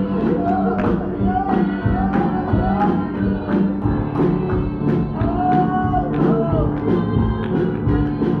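Gospel music: a held organ or keyboard chord under a singer's voice, with sharp percussion strokes keeping a steady beat about twice a second.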